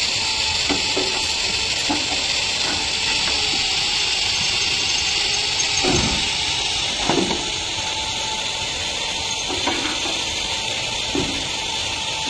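Steady hiss of a compressed-air spray gun, with occasional knocks against the steel frame.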